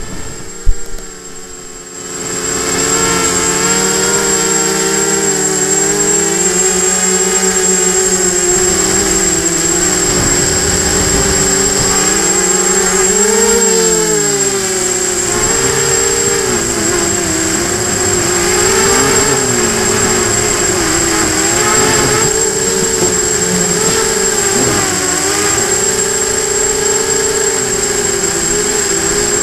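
A hexacopter's brushless motors and propellers whining in flight, picked up by the onboard camera, with the pitch rising and falling as the throttle changes, over a steady high tone. The motor sound is quieter for about the first two seconds, then comes up to full.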